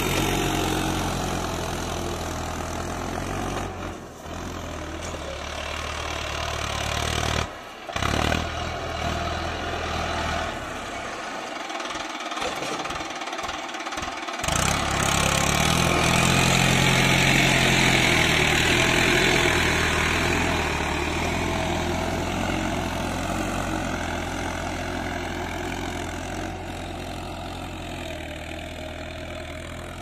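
Mahindra Arjun 555 DI tractor's four-cylinder diesel engine running steadily under load while pulling a mouldboard plough. The low engine note drops out briefly a few times in the first half, and the engine is loudest a little past the middle.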